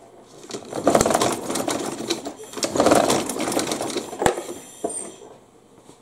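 Briggs & Stratton push-mower engine cranked over twice on its recoil starter rope with the spark plug out and grounded by a jumper wire, a rapid whirring clatter for about two seconds each pull. This is a spark test on a no-start engine.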